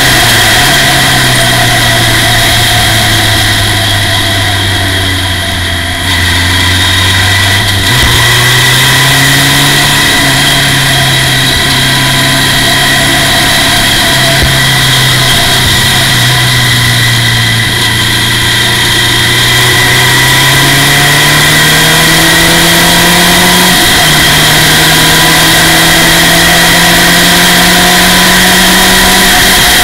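Formula Ford race car's four-cylinder engine heard on board at speed. The note sags and falls under braking, then jumps up sharply with a downshift about eight seconds in. It climbs steadily through the revs while accelerating, with an upshift drop about three-quarters of the way through.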